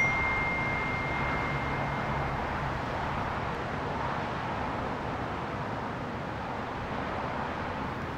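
A single phone text-message alert ding right at the start, its tone ringing on for about two seconds, over a steady hum of distant city traffic.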